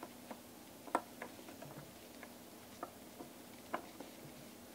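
Metal tweezers working a small plastic fan connector loose from a graphics card's circuit board: a few faint, irregular clicks as the connector is wiggled.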